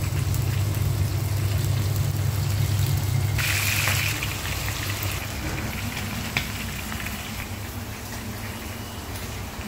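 Thin beef slices sizzling and crackling in hot oil in a frying pan, over a low steady hum that drops away about four seconds in, with a brief louder hiss just before.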